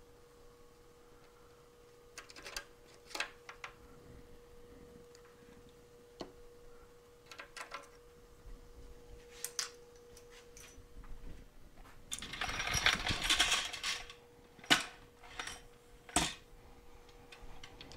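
Small metal clicks and clinks of hand tools being handled as a tap and its holder are worked out of a freshly tapped hole, over a faint steady hum. About twelve seconds in comes a two-second burst of hissing noise, the loudest sound, followed by two sharp knocks.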